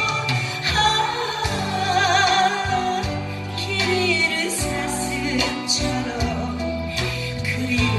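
A Korean ballad sung with wavering vibrato over a backing track with a steady bass line and accompaniment.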